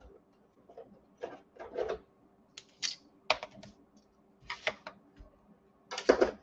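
Irregular clicks, taps and light rustling as cardstock and a plastic spacer strip are handled and set down on a plastic scoring board, with a denser cluster of handling sounds near the end.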